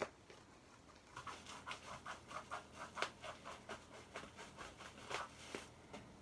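Packaging handled and pulled open by hand: a sharp click, then a quick run of crinkling, scratching rustles lasting about five seconds.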